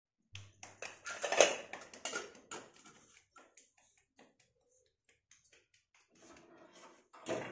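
Light taps, clinks and knocks of steel kitchen utensils (bowls, lids, pots) being handled and set down on a hard floor, busiest in the first few seconds, with a louder clatter near the end.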